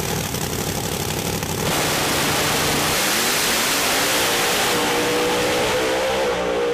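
Loud engine running, its pitch rising about three seconds in and then held steady at high revs.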